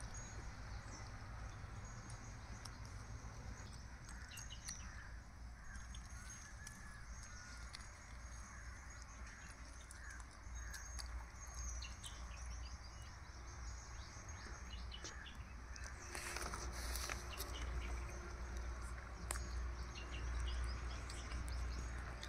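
Outdoor rural ambience: small birds chirping and a crow cawing over a steady low rumble, with scattered small clicks and a brief rustling noise about sixteen seconds in.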